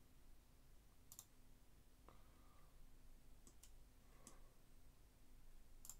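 A few faint computer mouse clicks, spaced a second or more apart, over near silence.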